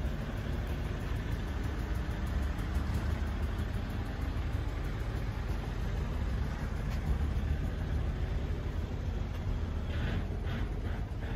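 A heavy engine idling with a steady low rumble, and a few short clatters near the end.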